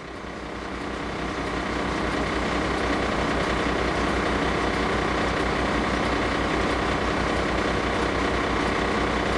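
Heavy diesel engine of a fire apparatus running, growing louder over the first two seconds, then holding steady.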